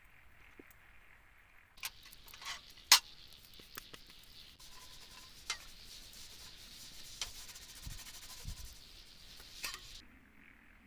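Close rustling and rubbing of handled gear or fabric with several sharp clicks, starting about two seconds in and stopping suddenly near the end.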